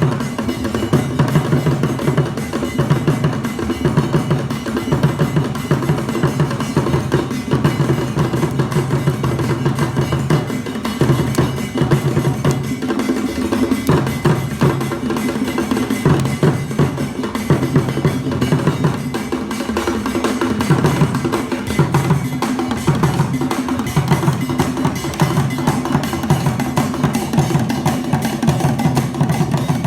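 Akan kete drum ensemble playing continuous, dense drumming, with deep pitched drum strokes under a busy interlocking rhythm.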